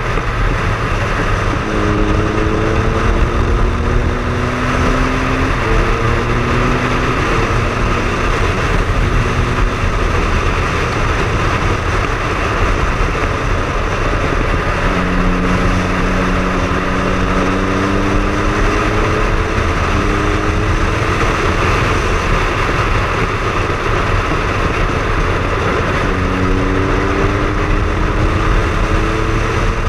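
Triumph Speed Triple's inline three-cylinder engine under way, heard through heavy wind and road noise. The engine note climbs slowly in several stretches and steps down between them, as the bike pulls through the gears and shifts.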